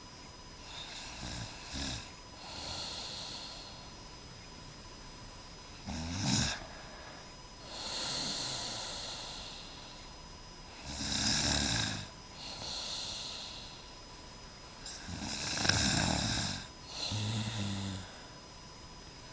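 A sleeping young woman snoring steadily. There are four snores about five seconds apart, each a low snore on the in-breath followed by a quieter, airy out-breath.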